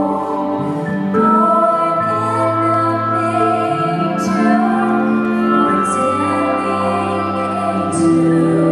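Slow, tender music with sustained held notes and chords changing every second or two.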